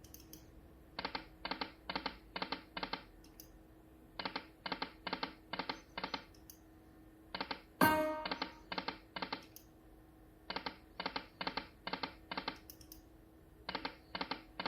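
Dragon's Riches Lightning Cash slot machine spinning its reels over and over: each spin is a run of short, evenly spaced chiming tones as the reels stop one after another, about four a second, with a steady low hum underneath.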